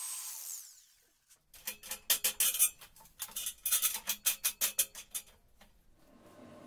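The grinder's hiss dies away in the first second. Then comes a short burst of percussive music, quick sharp rhythmic hits over a steady low note, which stops about a second before the end and leaves faint room tone.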